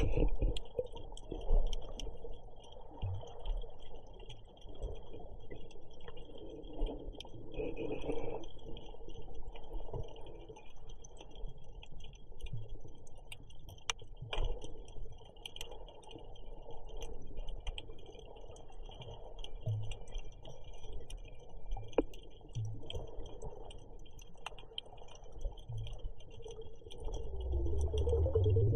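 Underwater sound picked up by a submerged camera: scattered sharp clicks and a steady high hiss, with swelling bursts of a scuba diver's exhaled regulator bubbles every several seconds, the loudest near the end.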